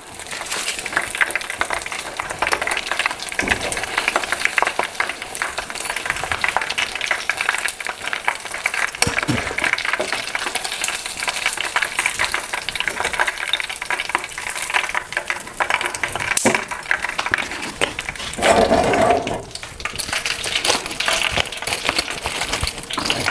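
Oysters pan-frying in hot oil, a steady crackling sizzle full of small pops, with a brief duller sound about nineteen seconds in.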